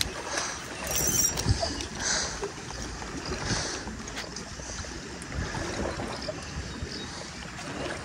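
Light rustling and small clicks of fishing tackle being handled, with weed being cleared off the lure, over a steady background of wind noise. A brief, higher hissy rustle comes about a second in.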